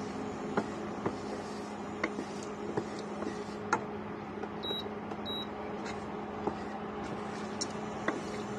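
A wooden spoon stirring a cornflour-thickened sauce in a pan, with scattered light taps and clicks over a steady low hum.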